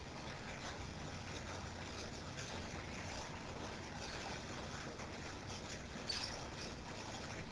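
Faint steady background noise, a quiet hiss of room tone over the call line, with one small click about six seconds in.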